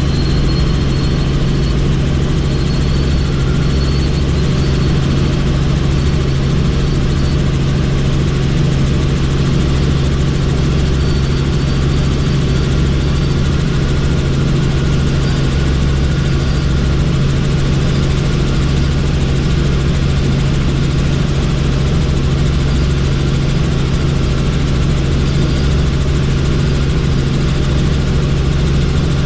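Helicopter in flight, heard from on board: a loud, steady drone of engine and rotors with a strong low hum that holds unchanged.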